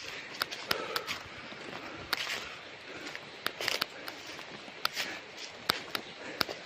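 Footsteps through dry leaves and undergrowth: an irregular run of crackles, snaps and sharp clicks.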